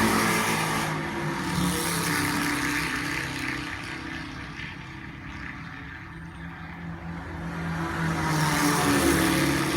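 Sports race cars on practice laps passing at speed. One car's engine note drops in pitch and fades as it goes away, and another car's engine grows louder about eight seconds in as it approaches.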